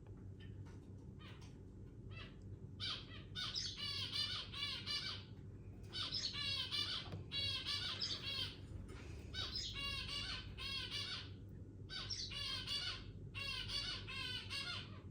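Zebra finch chick food-begging: four bouts of fast, high, repeated chirps, each lasting two to three seconds, starting about three seconds in. A low steady hum runs underneath.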